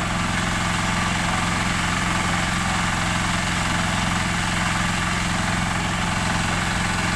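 An engine idling steadily, loud and even, with a fine rapid pulse and a hiss over it.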